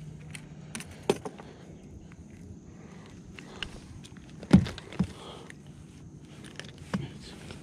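Scattered knocks and clicks of fishing gear and a fish being handled aboard a kayak, the loudest two thumps about four and a half and five seconds in.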